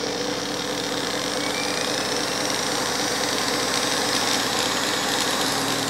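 Belt-driven motor-generator rig running: a large DC motor turns a hand-blender DC motor used as a generator, giving a steady hum with a high whine. A faint rising whine comes in about two seconds in.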